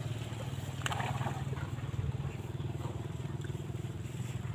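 A small engine running steadily at an even speed, with a short scratchy rustle about a second in.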